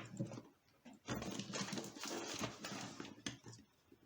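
A plain knife blade cutting through the handle of an old handbag, a scratchy rasping for about two seconds after a few small clicks.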